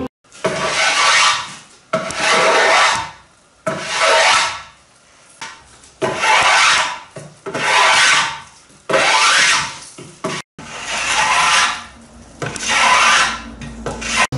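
Wooden boat mast being shaped by hand: about eight long strokes worked along the wood, each lasting about a second, one following another every second and a half or so.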